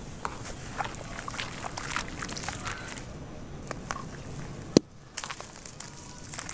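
Dry clay crumbled by hand: a run of small gritty crackles and clicks, with crumbs falling into muddy water later on. One sharp click about three-quarters of the way through.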